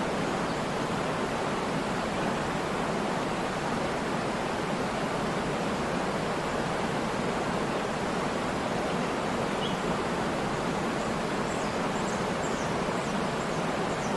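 Waterfall: falling water rushing as a steady, even roar with no let-up. A few faint high chirps come through near the end.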